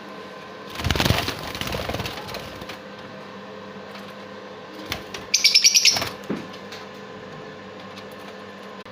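A bird's wings flapping in a fluttering burst about a second in, then a rapid run of about a dozen high chirps a little past halfway, over a steady background hum.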